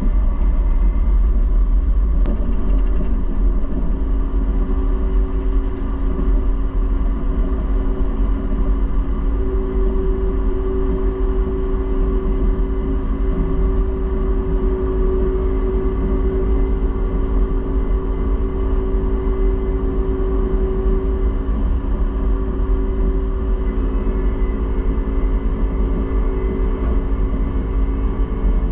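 Case IH combine harvester running steadily while harvesting soybeans: a deep, even engine-and-machinery rumble with a steady hum over it.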